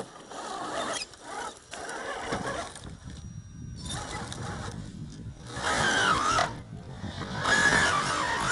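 Gelände II scale RC crawler with a Defender 90 body climbing over rocks, its electric motor and gearbox whining, the pitch rising and falling with the throttle. It is loudest in the second half, with the wavering whine strongest about six seconds in and again near the end.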